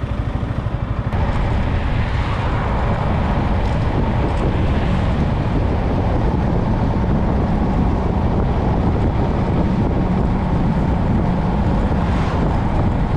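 Motorcycle running at riding speed along a road, with heavy wind rushing over the microphone. The engine's pulsing is clear for about the first second, after which the steady wind noise covers it.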